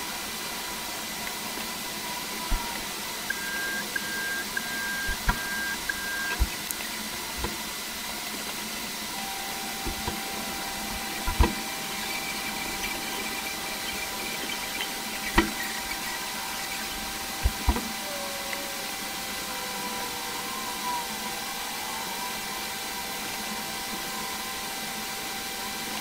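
Steady background hiss with faint constant tones, broken by a few sharp clicks and knocks, the loudest about eleven and fifteen seconds in. A short row of six quick beeps comes a few seconds in.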